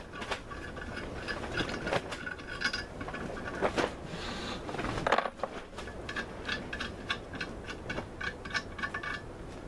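Ratcheting wrench clicking in quick runs as nuts are backed off an intake manifold, with a few louder metal clinks in between.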